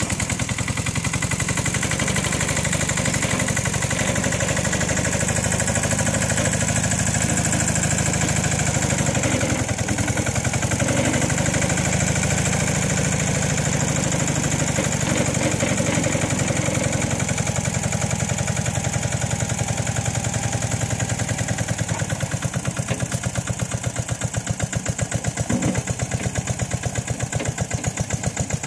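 Ruggerini diesel engine of a Toselli crawler-loader running with a steady, rapid chugging beat while the machine drives. Over the last several seconds the individual beats stand out more clearly.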